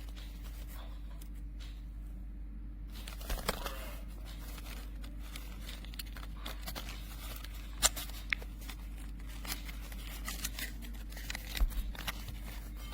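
Scattered rustles and short clicks of packaging and a small object being handled, over a steady low hum, with the sharpest clicks about eight seconds in and near the end.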